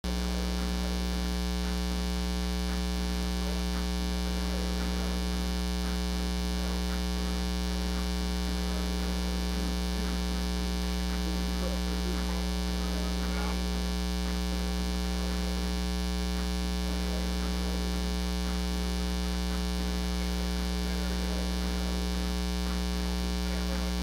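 Loud, steady 60 Hz mains hum with a buzz on top, unchanging throughout. It is ground-loop interference induced into the recording by powering the camera from its AC adapter while filming.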